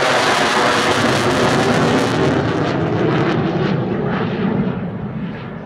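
F-35B Lightning II's F135 jet engine running with a loud, dense roar; about two seconds in the hiss on top starts dropping away with a few crackles, and the whole sound fades near the end.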